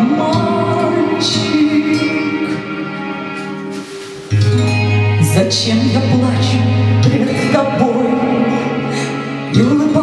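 A woman singing a Russian romance into a handheld microphone over a recorded backing track played through speakers. The music dips briefly just before a deep bass note comes in about four seconds in.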